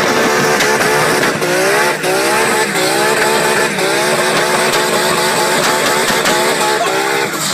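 Toy Mini Cooper car's electronic engine sound effect: a run of short rising revving sweeps, about two or three a second.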